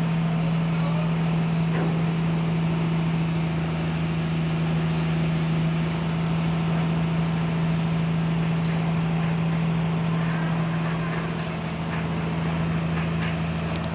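Engine running steadily at constant speed: an even hum with one strong low tone, and a few faint clicks over it.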